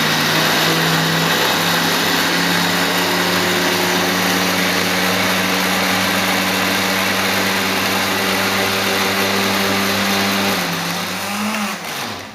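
Electric kitchen blender running loud and steady, blending washed beans with coconut milk into a paste. Near the end the motor's pitch dips, rises briefly, then winds down as it is switched off.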